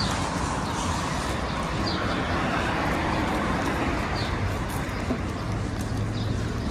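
City street ambience: a steady hum of road traffic from passing cars, with a few brief high chirps now and then.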